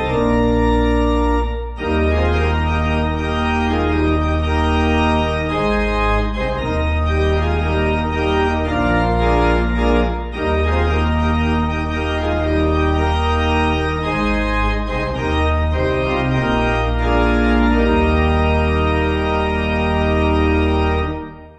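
Instrumental organ accompaniment to a hymn, playing held chords over a deep bass line that steps to a new note every second or two. The music dies away to silence right at the end.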